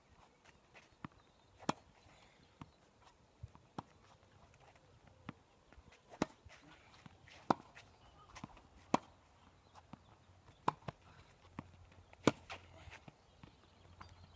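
Tennis balls being hit with a racket and bouncing on a hard court: sharp separate pops every second or two.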